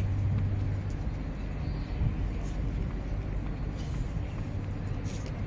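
Steady low outdoor rumble, with a low hum in the first second and a few faint ticks.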